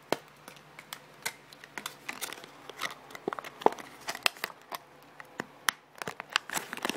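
Plastic processor packaging being pried open and handled by hand: irregular sharp crackles and clicks of stiff plastic.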